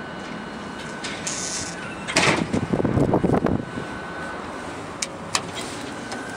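Automatic sliding doors of a 1989 SEMAG elevator closing, with a rattling run about two seconds in that lasts a second and a half, then two short clicks about five seconds in. A steady background hum runs underneath.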